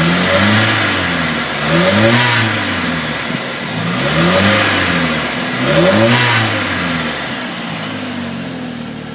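2000 Chevy S10's 2.2-litre four-cylinder engine revved in about four short blips, its pitch rising and falling with each, then dropping back to idle near the end. The owner is trying to trace a rattling noise whose source they do not know.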